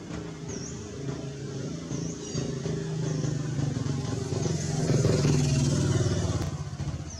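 A motor vehicle's engine running, getting louder to a peak about five seconds in, then fading.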